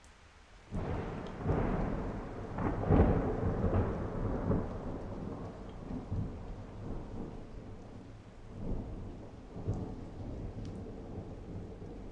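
Thunder in heavy rain. A thunderclap breaks suddenly about a second in, is loudest around three seconds, then rumbles on and slowly fades, swelling again twice near the end, over the steady noise of falling rain.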